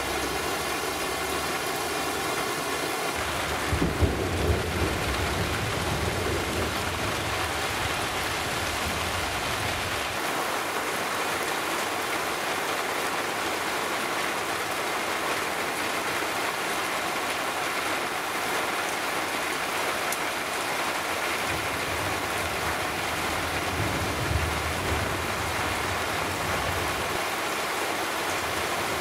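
Heavy downpour of rain hissing steadily on grass, paving and tile roofs, with thunder rumbling about four seconds in and again in the last third.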